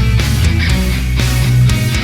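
Loud heavy rock background music with distorted guitar, bass and a steady drum beat.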